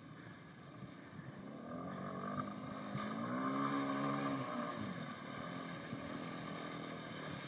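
A vehicle engine revving up and then easing off over a few seconds, its pitch rising and falling.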